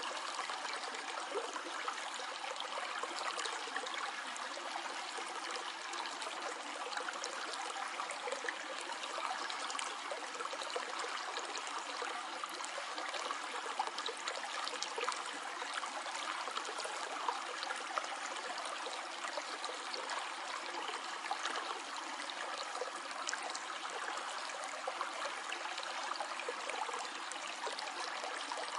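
Stream flowing over stones: a steady rush of water with small splashes and trickles running through it.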